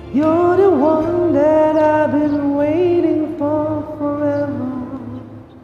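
A man sings a high, wordless closing run with vibrato over a karaoke backing track, in phrases that fade out near the end.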